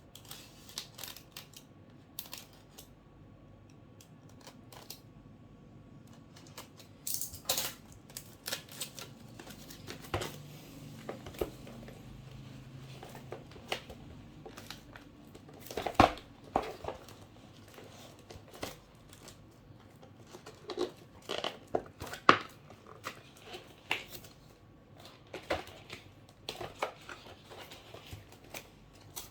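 A cardboard box and its packaging being handled and opened by hand: scattered taps, knocks, scrapes and crinkling, with sharp knocks about sixteen and twenty-two seconds in.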